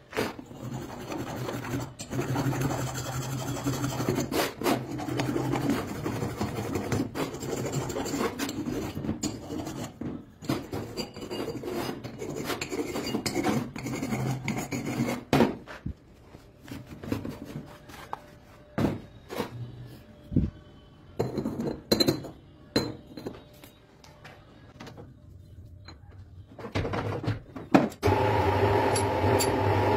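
Hand file rasping in repeated strokes across the top of a Honda Click 125 motorcycle cylinder block for about fifteen seconds. Then scattered metallic clinks and knocks, and near the end a metal lathe starts up and runs with a steady hum.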